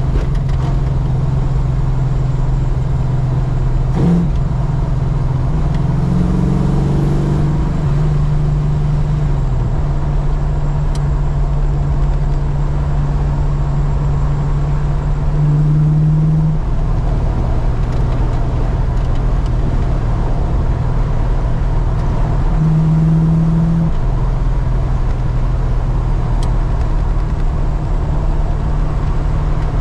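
Holden Commodore's engine running as the car is driven on the road, a steady low drone that rises in pitch briefly several times as the throttle is opened and eased. The engine is being run in.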